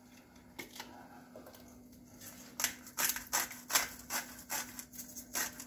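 Hand-twisted salt grinder being turned over a pan, a crunchy ratcheting grind of salt crystals starting about two and a half seconds in and repeating three to four times a second.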